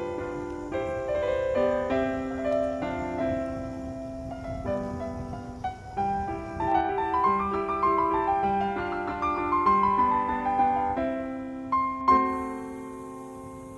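Solo piano music, a gentle melody of held notes with a phrase that climbs and falls again in the middle.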